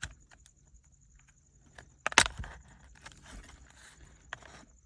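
Plastic shifter-console trim being pried and handled: light clicks and taps, with one sharp plastic snap about two seconds in as a retaining tab lets go.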